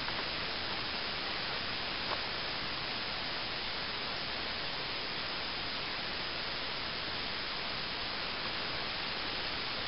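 Steady, even hiss with no rhythm or change, and one faint tick about two seconds in.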